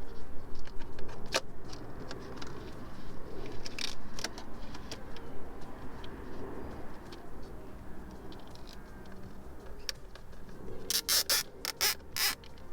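Hands working wiring and plastic cable ties: scattered clicks and rustles, then near the end a quick run of ratcheting clicks as a cable tie is pulled tight.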